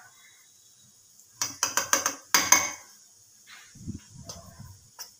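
Stainless steel grinder jar clattering and clicking as it is fitted onto a Pigeon mixer-grinder base: a quick cluster of sharp metal knocks about a second and a half in, then softer knocks about a second later. The motor is not running.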